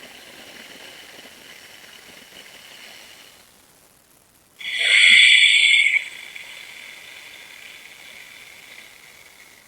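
Ujjayi (ocean breath) pranayama breathing through a narrowed throat: a soft, light snoring hiss of breath, with a much louder, sharper rush of breath about five seconds in.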